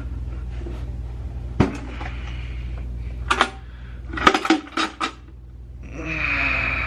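Small hard objects being handled: a knock, then a quick series of sharp clicks and clinks, followed by a rustle near the end.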